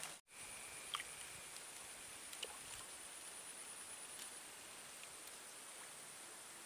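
Faint outdoor ambience by still swamp water: a steady low hiss with a thin, steady high-pitched tone, and a few soft ticks.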